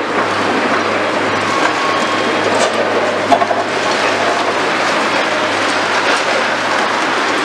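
High-reach demolition excavator at work on a concrete building: a steady engine hum under a continuous rumble and clatter of breaking concrete and rubble, with a few sharp knocks, the loudest about three seconds in.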